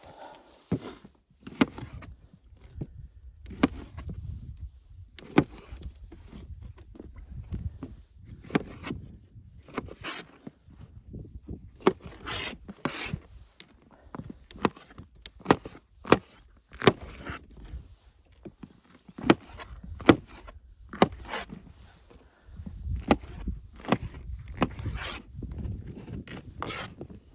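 Irregular knocks, clicks and scrapes, several loud sharp ones, over a low rumble that comes and goes.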